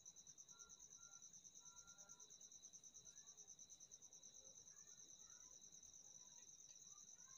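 Near silence, with a faint, steady, high-pitched pulsing trill of an insect.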